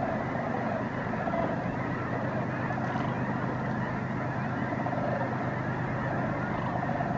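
A large mixed flock of snow geese and sandhill cranes calling, a dense continuous chorus of overlapping honks and calls over a steady low hum.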